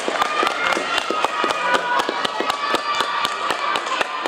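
Spectators clapping by hand after a gymnastics floor routine. The claps are sharp and separate, in a quick, uneven patter.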